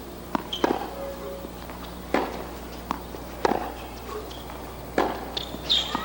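Tennis ball being struck by rackets and bouncing on a hard court during a baseline rally: a string of sharp pops, one every half second to second or so.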